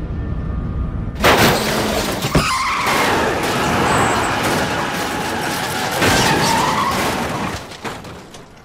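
A car and motorcycle crash: a loud impact about a second in, a smaller bang soon after, then a long tyre screech as the car skids, fading away near the end.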